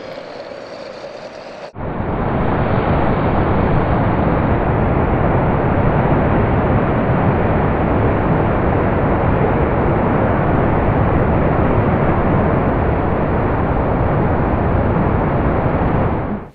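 A loud, steady rushing roar of noise with a heavy low end, no tone or rhythm in it. It cuts in abruptly a couple of seconds in and stops abruptly at the end.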